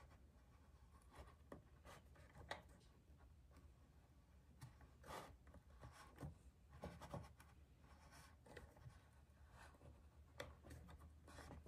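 Faint, scattered scratching and a few light clicks from a brass wheel marking gauge being run along the edge of a walnut box, its cutter wheel scoring a line into the wood.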